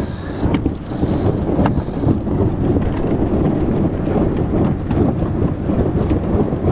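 Strong wind buffeting the microphone aboard a sailboat under way in high wind, a steady loud rush, with a few sharp mechanical clicks in the first two seconds.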